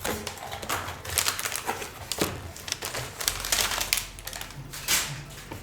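Cardboard box and paper packaging being opened and handled: irregular crinkling, rustling and scraping with quick taps and clicks.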